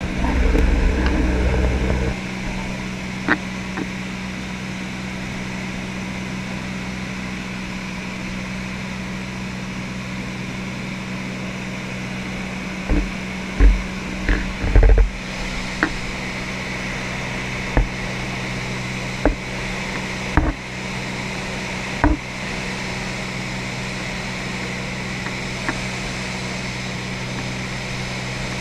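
Single-engine light aircraft's piston engine and propeller droning steadily, heard inside the cabin. It is louder and deeper for the first two seconds, and a series of short low thumps comes between about 13 and 22 seconds in.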